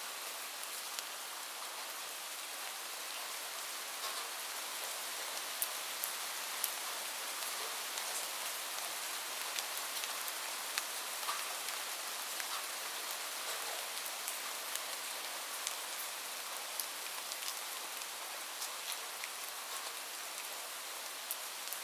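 Light rain falling steadily: an even hiss of rain with many small, sharp drop ticks scattered throughout.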